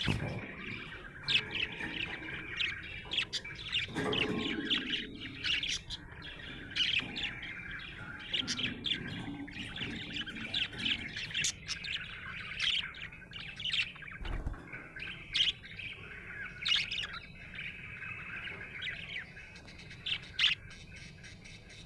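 Budgerigar chirping and warbling continuously, a steady stream of rapid short chirps.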